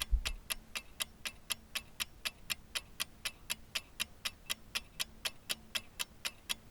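Fast, even mechanical ticking, about four clicks a second, with a faint steady hum underneath.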